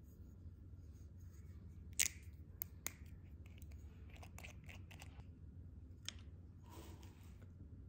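Metal screw cap being twisted off a small glass vitamin-drink bottle. There is a sharp crack about two seconds in as the cap's seal breaks, then a run of small clicks as the cap turns loose.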